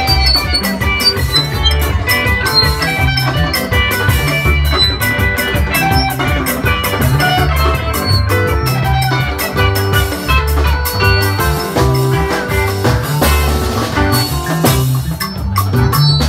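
Live highlife band playing an instrumental passage: bass guitar and drum kit keep a steady beat under bright, quick melody notes.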